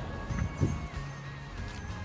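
Background music with a held, slightly wavering tone over a low rumble, and a brief low thump about half a second in.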